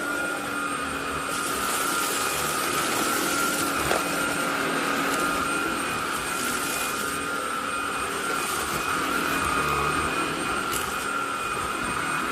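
SilverCrest SHAZ 20 A1 20 V cordless cyclonic vacuum cleaner running steadily, its motor giving a constant high whine over a rushing hiss.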